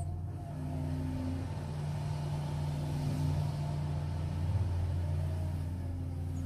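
Caterpillar 345GC hydraulic excavator's diesel engine running steadily under load as the machine slews its upper body and swings the boom, a continuous low hum with a faint whine that rises and falls.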